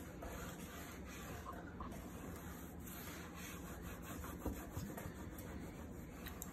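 Pen scratching and rubbing on a paper worksheet while a child writes, with a few light taps of the pen.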